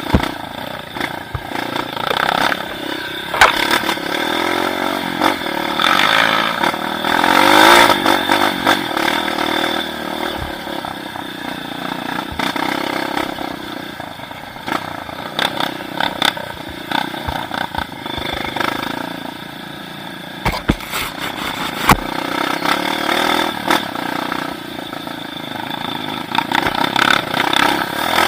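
Motor engine running and revving up and down, with scattered clattering knocks, strongest a little past two-thirds of the way in.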